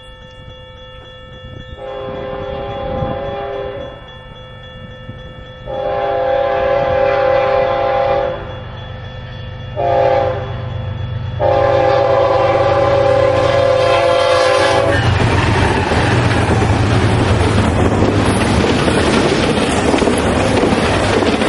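The multi-chime air horn of a BNSF ES44DC diesel locomotive sounds the grade-crossing signal, long, long, short, long, growing louder as the train approaches. About fifteen seconds in the horn stops, and the locomotive and an intermodal train of trailers on flatcars rush past close by with a loud rumble and rail noise.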